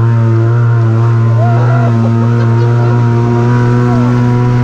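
Side-by-side UTV engine running hard at steady revs as the vehicle ploughs through a muddy pool, with water spraying against it.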